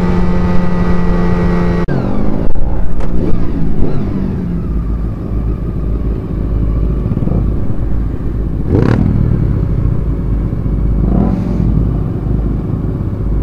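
Motorcycle engine holding a steady note while cruising. After a cut its revs fall away to a low steady running sound with rumble on the microphone, and a brief swell of passing noise comes about nine seconds in.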